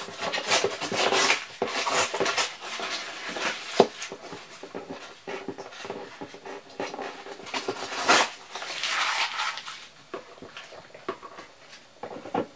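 Paper being torn and peeled away from a cardboard box lid: a run of irregular scratchy rips and rustles, with a sharp snap about four seconds in and a longer, louder rip about eight seconds in.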